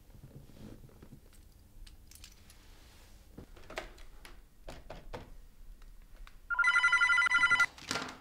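Office desk telephone ringing once with an electronic trill, about a second long near the end, followed by a sharp click as it stops. Before it there are scattered soft clicks and handling knocks of a desk phone handset and keys.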